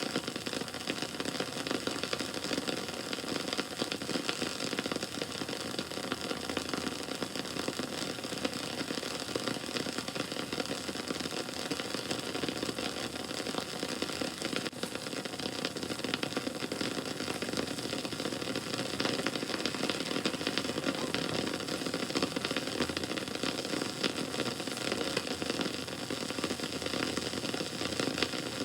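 Wood bonfire burning: a steady rushing noise with dense, continuous crackling.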